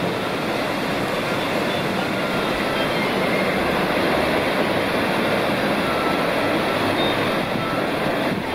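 River water rushing through a weir and churning in the foaming pool below it: a loud, steady rush.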